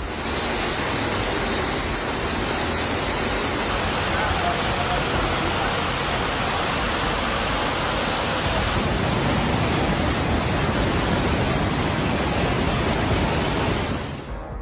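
Steady, loud rushing of water, shifting slightly in character about four and nine seconds in.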